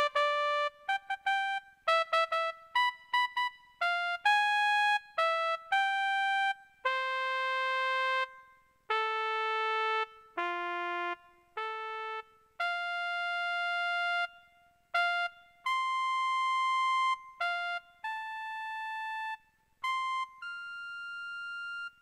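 Background music: a synthesizer playing a melody one note at a time, quick notes at first, then slower held notes.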